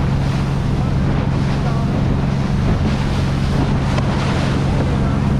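A boat's engine running with a steady drone under a continuous rush of wind on the microphone and water washing past the hull.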